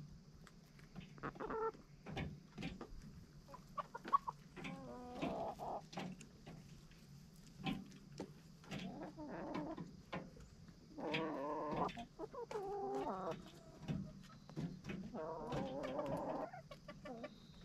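A backyard chicken flock clucking in several runs of low, wavering calls, with short clicks in between.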